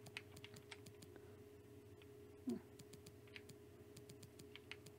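Near silence with faint, irregular button clicks, several a second, and a brief low sound about two and a half seconds in, over a faint steady hum.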